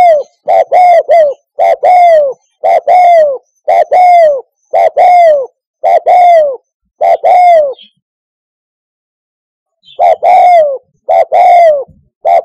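Spotted dove cooing: a steady run of short coos about one a second, each falling in pitch at its end, breaking off about eight seconds in for two seconds and then resuming.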